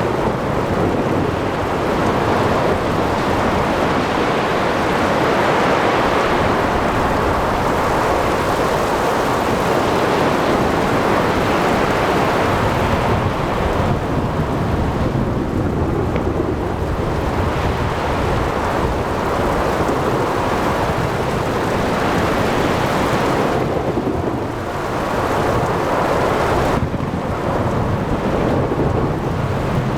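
Thunderstorm at sea: heavy rain and a dense rumble of thunder over wind and breaking waves, swelling and easing slowly.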